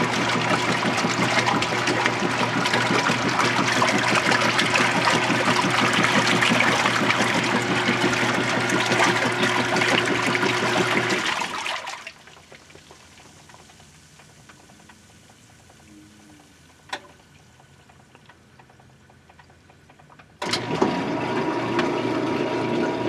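Whirlpool Direct Drive top-load washer running with water churning and a steady motor hum, which stops abruptly about halfway through. After several quiet seconds with a single click, the motor starts again suddenly and the pump empties the tub in a neutral drain, with the basket not spinning.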